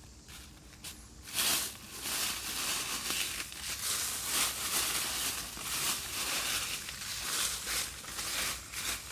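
Dry fallen leaves and leafy twigs rustling and crackling under hands working among them, in irregular bursts, the loudest about a second and a half in.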